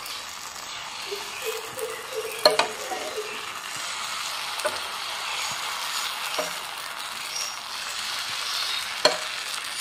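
Batter and ghee sizzling steadily in a hot nonstick frying pan as more batter is ladled over a stack of thin pancakes, with a few light clicks of the steel ladle against the food and pan.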